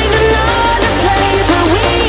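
Background pop music with a heavy bass line and a sliding melody.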